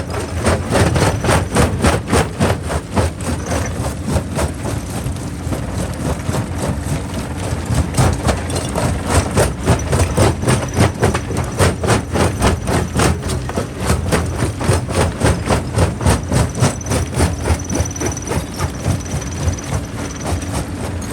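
Jaw rock crusher running under load: a steady low rumble with a fast run of knocks and cracks, about three a second, as rock is broken between the jaws.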